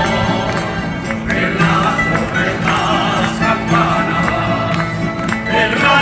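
Live folk music: a band of guitars and other plucked string instruments playing, with singing over them.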